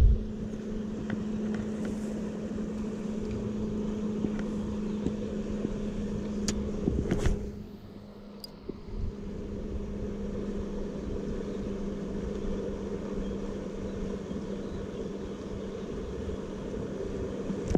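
Steady motor hum holding one constant low tone, over a low rumble that dips briefly about halfway through.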